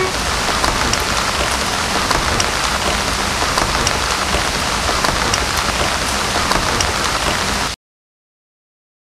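Steady heavy rain: a dense, even hiss with scattered small drop ticks. It cuts off suddenly near the end, leaving dead silence.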